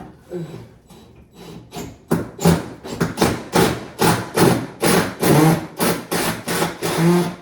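Rhythmic scraping strokes of a hand tool working material, starting about two seconds in and repeating two to three times a second.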